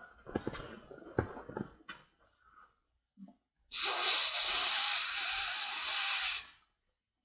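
Inflatable vinyl blimp being handled with a few knocks and rustles, then one long steady breath of air blown into its valve, lasting nearly three seconds and stopping abruptly.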